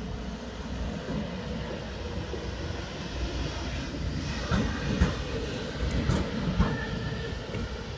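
Siemens Vectron electric locomotive rolling past close by, with a steady rumble and a run of sharp clicks from its wheels over the rail joints, about halfway through and again near the end.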